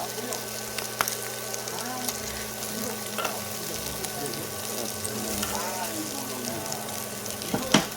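Pork intestines (gopchang) and pork jowl sizzling as they cook, with fat spitting in small pops over a steady low hum. There is one sharp, loud click near the end.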